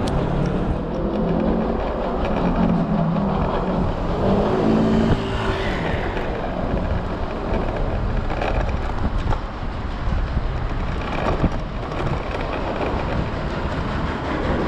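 Continuous road rumble and wind noise from an Okai ES400A electric kick scooter rolling over city streets, with car traffic around it and a couple of short knocks from the ride.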